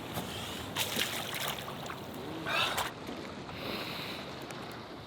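Steady wash of wind and lake water around a small boat, with two brief rushes of noise, one about a second in and a louder one around two and a half seconds.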